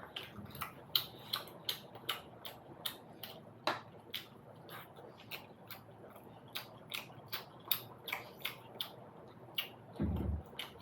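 Close-miked chewing of momo dumplings: a run of wet mouth clicks and smacks, two or three a second. Near the end there is one dull low thump.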